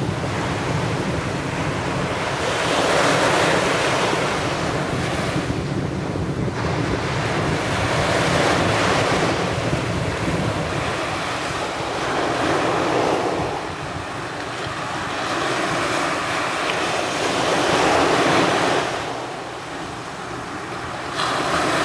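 Sea surf: waves breaking and washing up on a sandy shore in a steady rush that swells and fades every few seconds.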